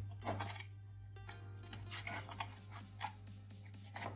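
Background music over a steady low hum.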